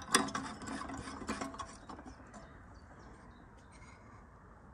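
Hard plastic and metal clicks and rubbing from the open streetlight housing being handled, loudest at the start and dying away after about two seconds.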